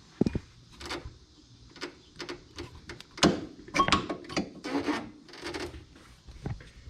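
Polaris RZR rear sway bar and its link being worked by hand into position: a string of irregular metal clicks, knocks and light rattles.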